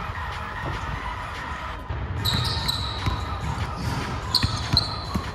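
Basketball dribbled in quick, repeated bounces on a hardwood gym floor. Sneakers squeak sharply on the floor about two seconds in and again near the end.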